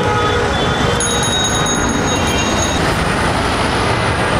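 Steady din of city street traffic with engines running, and a thin high-pitched tone sounding for about two seconds starting about a second in.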